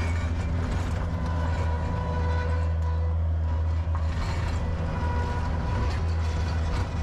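Bobcat skid-steer loader's diesel engine running steadily, heard from inside the cab, with a thin whine over the low drone that swells slightly now and then.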